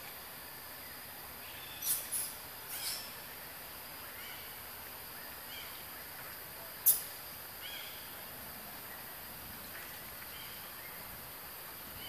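Forest ambience with a steady high insect hiss, broken by a few short, sharp high-pitched animal calls about two seconds in and again, loudest, about seven seconds in, with fainter brief chirps between.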